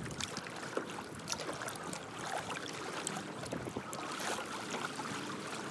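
Small waves lapping and splashing against a plastic kayak hull, with many small irregular water clicks.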